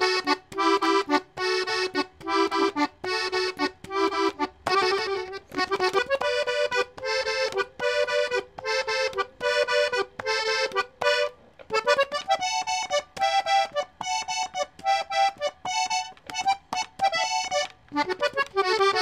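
Hohner three-row diatonic button accordion tuned in G playing a melody on its treble buttons in short, separated notes. The melody steps up to higher notes about six seconds in and again about twelve seconds in.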